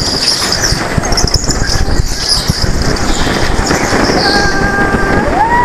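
Go-karts running on an indoor track: a loud, rough, crackling din, with a high squeal that rises and holds near the end.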